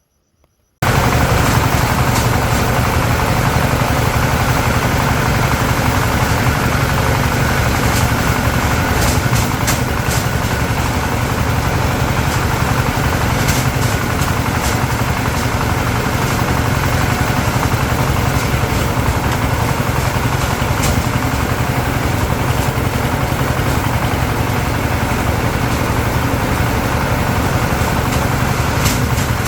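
An engine running steadily, starting abruptly about a second in.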